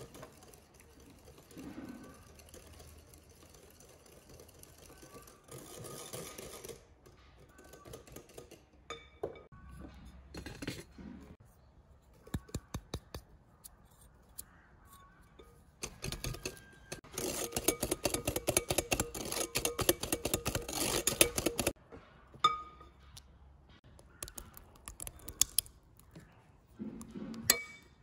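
Wire whisk clinking against a glass mixing bowl of pancake batter. At first it comes in scattered taps, then a few seconds of fast, steady whisking with quick ticking strokes about two-thirds of the way through, which stops suddenly.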